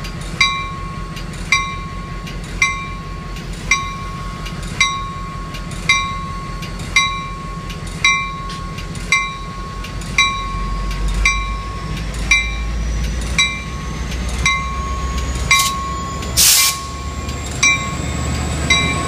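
EMD F40PH locomotive's two-stroke V16 diesel running under its bell, which rings about once a second. About ten seconds in, the engine's low rumble grows louder as the locomotive throttles up to depart, and a short, sharp hiss comes near the end. The engine is running with a bad injector, according to the conductor.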